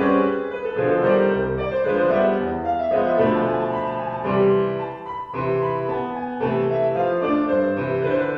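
Background music led by piano: a melody of held notes over a bass line.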